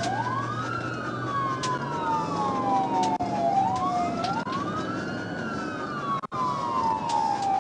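Police siren wailing, each cycle rising quickly and then falling slowly, repeating about every three and a half seconds.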